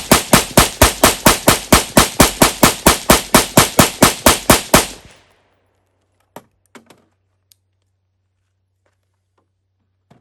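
AR-15 with a short 5-inch-barrelled 300 Blackout upper firing fast, even semi-automatic shots, about four a second. The string stops about five seconds in as the 30-round magazine runs dry, and a few faint clicks follow.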